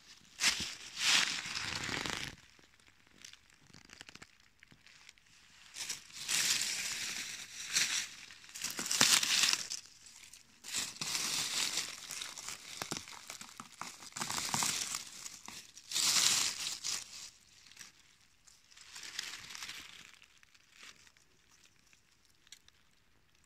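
Dry fallen beech leaves crackling and rustling in irregular bursts as a hand brushes them aside on the forest floor, dying away near the end.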